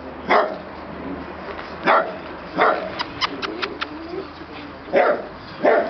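Small dog barking: five sharp single barks, a second or more apart. About halfway through comes a quick run of short clicks.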